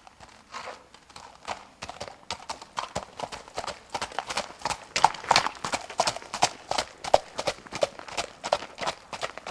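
Hoofbeats of a Missouri Fox Trotter filly under saddle on hard-packed dirt: an even clip-clop that quickens and grows louder about two seconds in.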